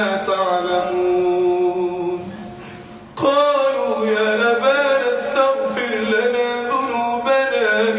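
A man chanting Quranic verses in melodic tajweed style, drawing out long held notes. His voice fades out for a breath about two seconds in and comes back strongly about three seconds in.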